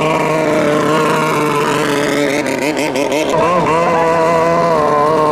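Longtail racing boat engine running flat out at a steady high pitch, its note wavering up and down for about a second near the middle before settling again.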